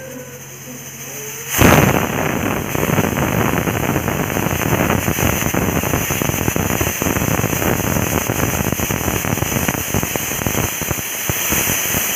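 Prestige pressure cooker whistling: steam hisses out from under the lifted weight valve with a rapid rattling. It starts suddenly about a second and a half in and keeps going steadily. This is the cooker's second whistle, the sign that the two-whistle cooking count is complete.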